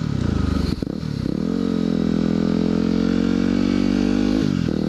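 2010 Yamaha WR250R's single-cylinder engine running under way. There is a brief dip about a second in, then the revs climb and hold steady before dropping off near the end.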